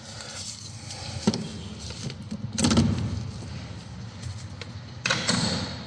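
Handling and working noises from a socket and ratchet unscrewing a reverse light switch: a sharp click about a second in, then louder scraping and knocking around three seconds and again near the end.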